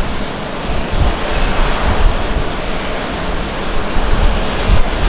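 Jet engine noise from a Japan Airlines Boeing 787-8 Dreamliner climbing out after takeoff at climb power: a loud, continuous roar with a deep, wavering rumble underneath.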